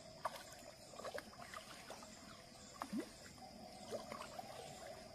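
Faint outdoor ambience: scattered short chirps and clicks over a steady high hum.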